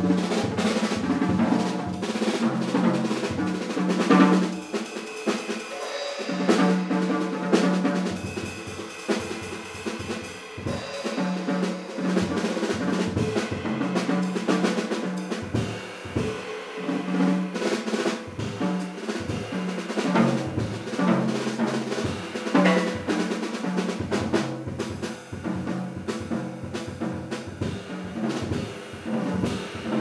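Jazz drum kit played with sticks in a busy, solo-like passage: rolls and fills across snare, toms and bass drum, with cymbal strokes. A low held note from the band comes and goes behind the drumming.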